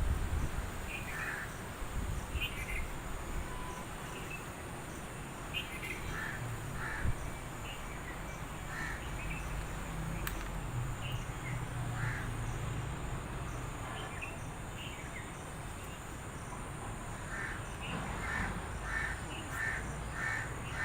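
Birds calling: scattered short calls, then near the end a run of evenly repeated calls, a little under two a second, over a steady low rumble.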